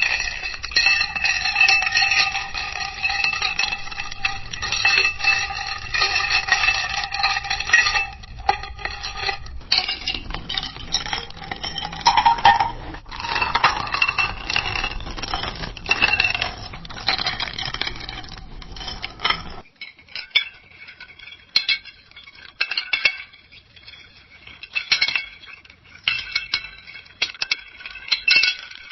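Ice cubes clinking in a glass, three separate takes in a row that change about 10 and 20 seconds in. In the first take the glass rings on between the clinks, and the last take has sparser, quieter clinks.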